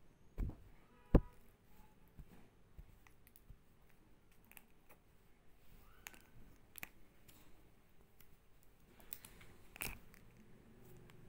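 Kitten playing with a plastic comb: scattered clicks and scratchy taps as its teeth and claws catch the comb, with a sharp knock about a second in and another cluster of clicks near the end.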